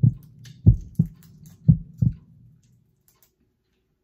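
Deep double thumps in a steady heartbeat rhythm, about one pair a second, over a low hum; they stop about two and a half seconds in.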